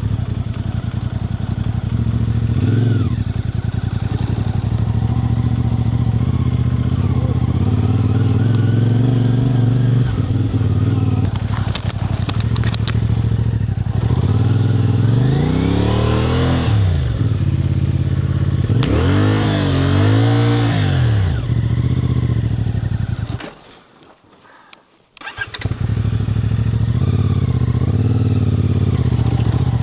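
Small vehicle engine running steadily. The revs rise and fall twice in the middle, and the sound cuts out for about two seconds near three-quarters through before the engine drone returns.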